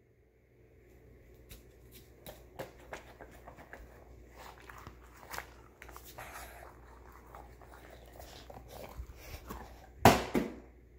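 Handling noise from a phone held in the hand: scattered soft clicks and rubbing, then two loud rustling bumps close together about ten seconds in.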